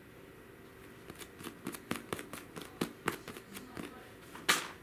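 Hands squeezing and handling a giant foam squishy toy close to the microphone: an irregular run of soft crackles and rustles, with one louder brush near the end.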